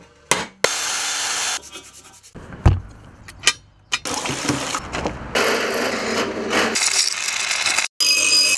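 A quick-cut string of workshop sounds: sharp knocks of a wooden mallet, a heavy thump a little under three seconds in, stretches of rubbing and scraping, and near the end a grinder cutting metal with a high whine.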